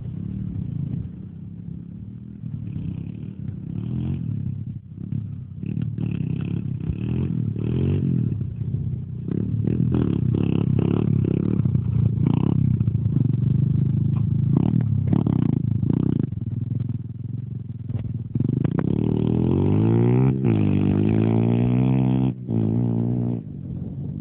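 Thumpstar 125 pit bike's four-stroke single-cylinder engine being ridden hard, its revs rising and falling again and again. Near the end the revs climb sharply twice in quick succession, then hold before the sound eases off as the bike moves away.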